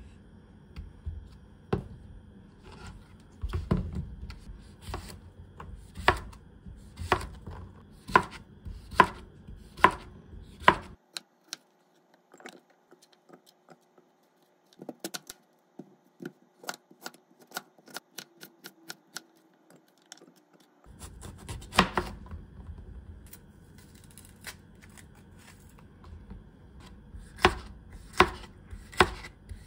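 Chef's knife slicing cucumber on a plastic cutting board, sharp strokes about once a second. A quieter stretch of light clicks follows in the middle, then more knife strokes near the end as red bell pepper is sliced on the board.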